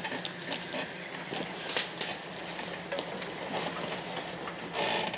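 Jeep Wrangler TJ crawling up a steep, rutted dirt slope, its engine running low and steady under scattered crackles and knocks of tyres working over dirt and roots, with a louder rush near the end.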